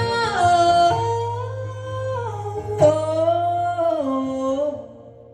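Live bluegrass/folk song: long held, bending vocal notes over acoustic guitar and a steady bass note, dying away just before the end.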